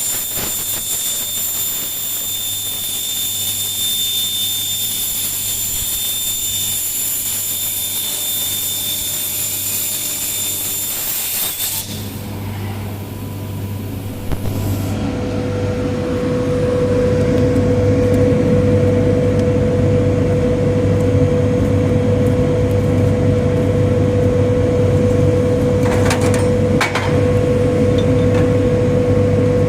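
CNC plasma cutting torch running: a steady high hiss with a high whine. About twelve seconds in it changes to a louder, lower steady drone with a hum.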